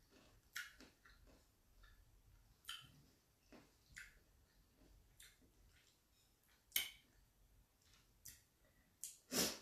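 Close-up eating sounds of crisp raw mango: a scatter of short crunches and mouth clicks from biting and chewing, with the loudest crunch near the end.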